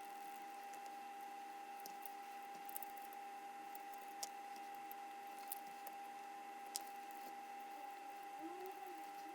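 A few faint, sharp clicks come roughly every second and a half over a steady high-pitched electrical hum, the small clicking of handling at a workbench.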